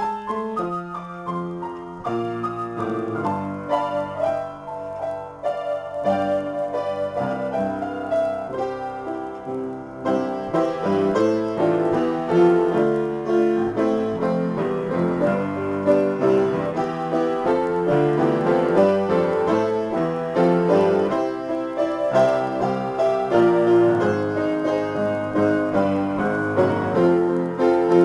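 Upright piano played solo in a free improvisation, with dense chords and running notes throughout. It gets louder and fuller about ten seconds in.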